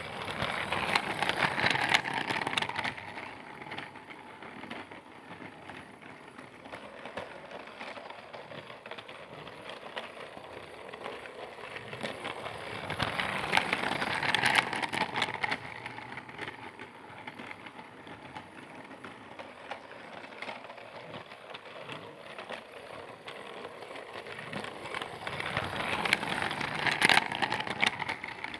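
Percy toy train running around a looped track, its small motor and wheels rattling. It grows louder and fades away three times, about every twelve to thirteen seconds, as it passes close by on each lap.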